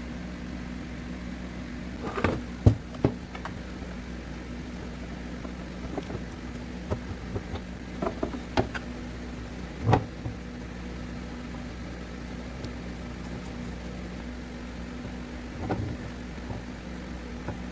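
Scattered light clicks and taps from small parts and tools being handled on a repair bench, loudest about two to three seconds in and near ten seconds, over a steady low hum.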